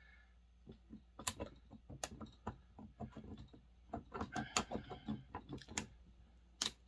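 Irregular light clicks and knocks of metal parts being handled, denser near the end, as the cylinder is worked loose from a Homelite XL Automatic chainsaw.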